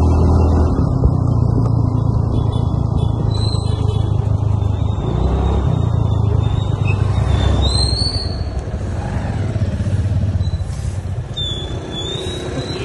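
Motor scooter running along a street, with wind rumbling on the microphone, easing off after about eight seconds as it slows. A few short high chirps sound over it.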